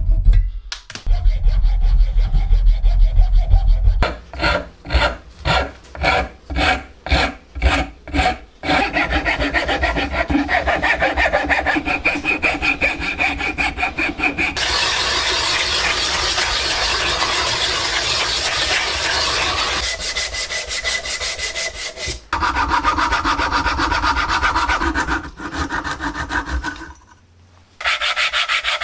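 Hand tools working wood: a fine-bladed fret saw cutting a wooden plug flush, then a string of separate saw strokes, about two a second, and then steady rasping of a saw blade across the end of a wooden dowel. Near the end comes a short break, and then a small wooden disc is rubbed back and forth on sandpaper.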